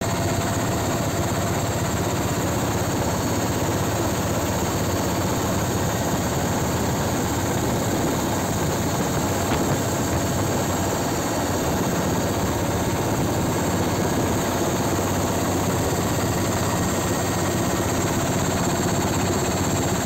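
Steady drone of an aircraft engine heard from inside the cabin: an even rushing noise with a low hum beneath it, unchanging throughout.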